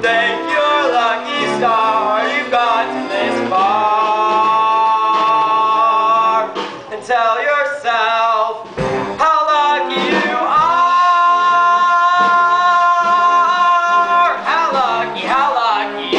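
Musical theatre number: voices singing with instrumental backing, holding a long note from about four seconds in and again, longer, from about ten to fourteen seconds in.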